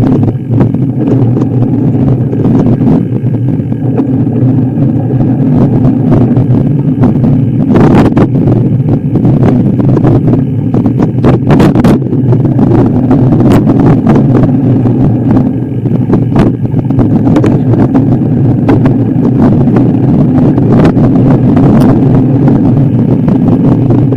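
A motor vehicle driving, its engine running steadily and loudly, with scattered knocks and clatters along the way.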